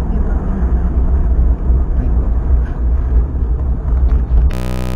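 Vehicle on the move: a steady, heavy low rumble of wind and road noise buffeting the microphone. Near the end it gives way to a brief steady electronic buzz.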